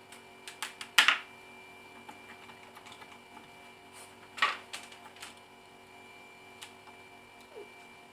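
Scattered knocks and clatters of things being handled on a plywood workbench, such as a power cord and plug set down. The loudest comes about a second in and another about four and a half seconds in, over a faint steady hum. The router is not running.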